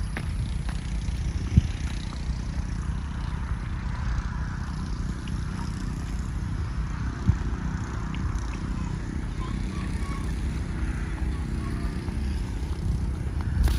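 Steady low outdoor rumble, the kind made by wind on the microphone and distant traffic, with two soft knocks, one near the start and one about halfway.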